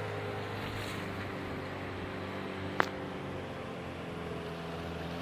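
A boat's motor running steadily underway on the river, a low even hum. One sharp click about three seconds in.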